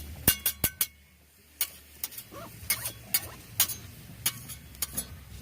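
Cooking utensils clicking and clinking against metal cookware: a string of sharp, irregular ticks, some with a short metallic ring, broken by a brief quiet gap about a second in.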